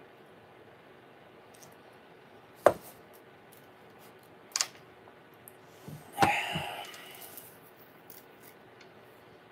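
Paper coffee cup set down on a hard tabletop with a sharp knock, then a lighter click about two seconds later. A short rasping sound follows about six seconds in.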